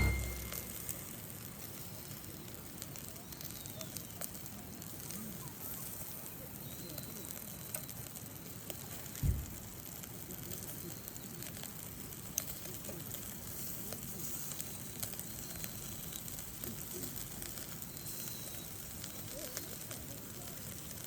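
Fire crackling with a light sizzle, a steady hiss dotted with small ticks and pops; a single low thump about nine seconds in.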